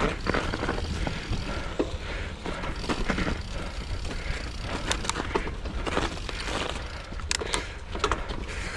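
Mountain bike riding over rough singletrack: steady tyre and trail noise with a low rumble, and frequent clicks and knocks as the bike goes over bumps.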